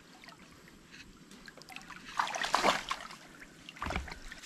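People wading through a shallow stream: water splashing and sloshing around their legs, loudest about two and a half seconds in, over the stream's steady trickle. A dull bump comes just before the end.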